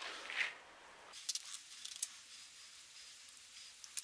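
Shredded cheddar cheese poured from a plastic measuring cup into a bowl of baking mix: a soft, brief rustle about half a second in, then faint small clicks.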